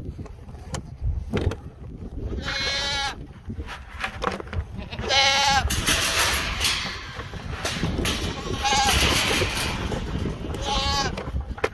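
Goats bleating: four wavering bleats spread a few seconds apart, over a low rumble, with a loud rushing noise through the middle.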